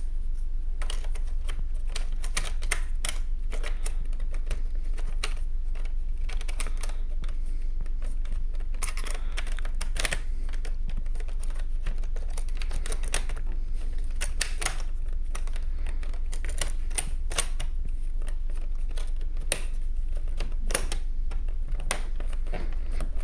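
Irregular sharp clicks and taps as the underside cover of a ThinkPad T430 laptop is handled and snapped into place, over a steady low hum.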